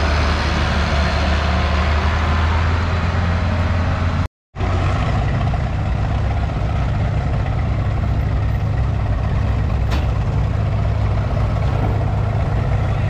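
Tractor engines running: first a red International turbo diesel tractor driving past close by, then, after a brief dropout about four seconds in, a Case tractor's engine running steadily at a lower note. A single sharp click sounds about ten seconds in.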